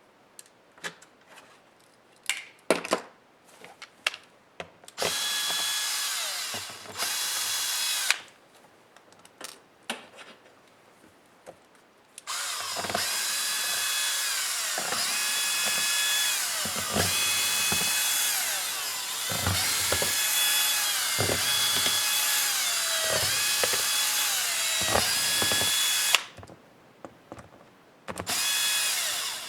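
Small electric screwdriver backing out laptop screws. A few light clicks and taps of handling come first, then two short runs, then a long run whose motor whine steps up and down in pitch. Another short run comes near the end.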